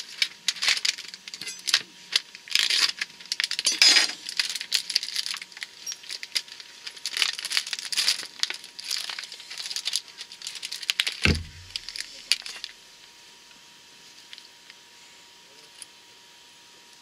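Plastic bacon packaging crinkling and crackling as it is handled and opened: a dense run of sharp crackles, with one low thump about eleven seconds in. The crackling stops about thirteen seconds in.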